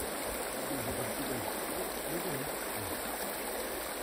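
River water flowing steadily, a constant even rush without breaks.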